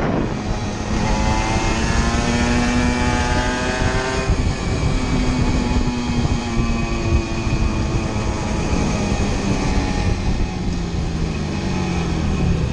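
Aprilia RS125's 125 cc single-cylinder two-stroke engine under way, its pitch rising for about three seconds, then dropping about four seconds in and running lower and steadier, before falling again near the end.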